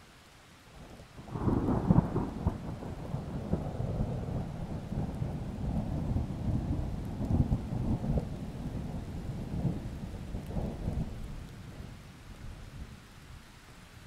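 Thunder: a sudden clap about a second and a half in that rolls on as a long low rumble and dies away about ten seconds later, over steady rain.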